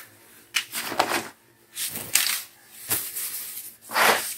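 Thin plastic carrier bags rustling and crinkling as they are handled, in several short bursts, the loudest near the end.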